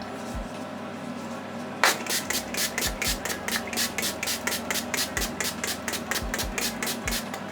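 Mario Badescu facial spray pump-sprayed onto the face in a fast run of about twenty short mist bursts, roughly four a second, starting about two seconds in.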